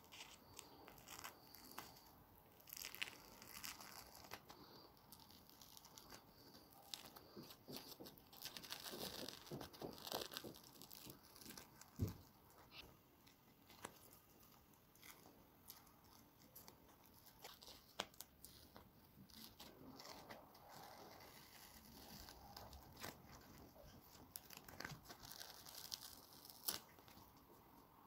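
A dried egg-white and paper-napkin face mask being peeled off the skin: faint, scattered crackling and tearing of the stiffened napkin, with a few slightly louder tears.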